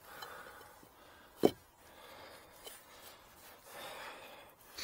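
Concrete paving slab piece scraping and rubbing as it is worked into place against the base of a timber post, with one sharp knock about a second and a half in and more scraping near the end.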